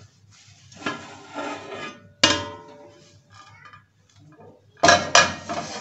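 Large aluminium cooking-pot lid lifted off the pot with a cloth. A scrape comes first, then a sharp metal clank with a brief ringing tone about two seconds in. Near the end come two loud clanks close together.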